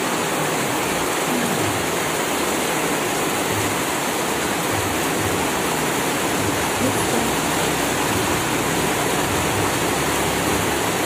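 Heavy rain falling steadily, an even hiss with no breaks.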